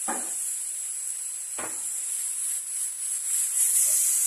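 Onions sizzling in a frying pan with soy sauce just added: a steady high hiss that swells near the end as the pan is lifted and shaken. Two short knocks in the first two seconds.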